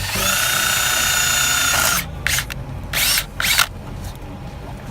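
Power drill drilling holes to mount car side splitters: a steady high whine that speeds up at the start and runs for about two seconds, then stops, followed by a short burst and a longer burst of the drill.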